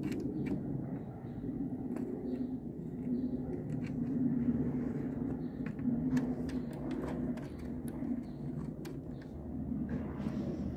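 Steady low rumble with a hum, like a running engine or machinery, with scattered light clicks and taps from metal fittings being handled on a panel.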